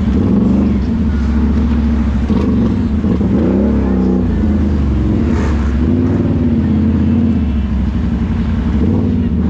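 Can-Am ATV engine running steadily under throttle. The revs rise and fall about three to four seconds in, and swell again more gently a couple of seconds later.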